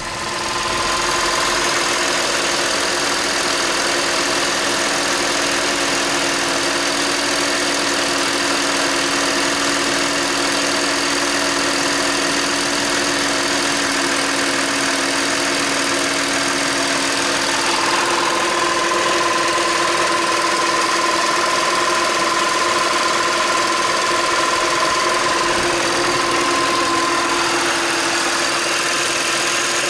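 Audi 3.2 FSI V6 engine (AUK) idling steadily just after start-up, with 295,000 km on its original timing chains.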